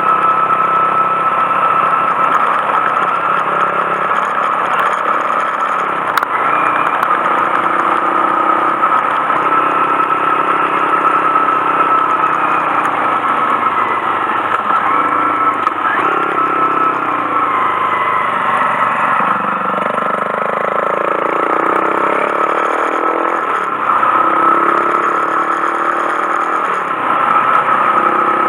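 Honda Monkey 125's single-cylinder four-stroke engine running while riding, its revs rising and falling as the bike speeds up and slows.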